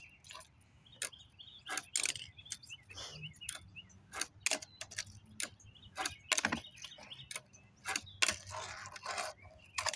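A Tech Deck fingerboard clacking on a hard tabletop: a string of irregular sharp clicks as the tail is popped, the board flips and its wheels land, over and over in repeated flip-trick attempts.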